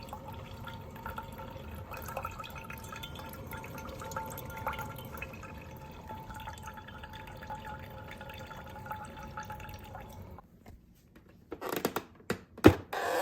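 KRUPS Simply Brew drip coffee maker brewing: hot water dripping and trickling through, with a faint steady hum, for about ten seconds. It then goes quiet, and a few sharp knocks follow near the end, the loudest just before the end.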